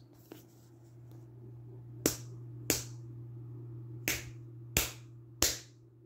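Five sharp knocks at uneven intervals, about half a second to a second and a half apart, over a steady low hum.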